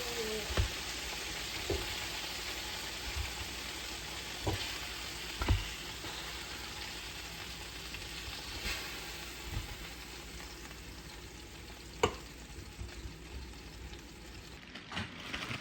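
Chicken thighs frying in sunflower oil: a steady sizzle that slowly eases off, with a few light knocks now and then and a sharper click about twelve seconds in.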